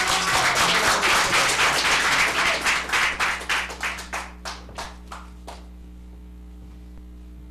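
Audience applauding: dense clapping that thins out into a few scattered claps over about five seconds and then stops, leaving only a low steady hum.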